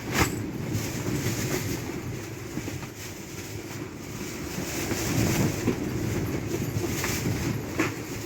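Typhoon wind and rain, a steady rushing noise that swells and eases slowly.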